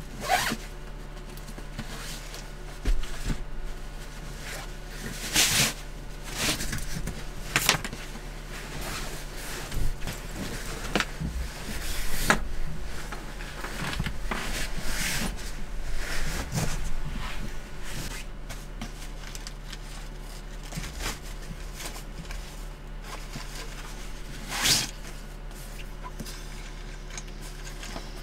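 Fabric rustling as a sleeping bag is spread out and clothes are handled and folded, with scattered soft knocks and bumps, over a steady low hum.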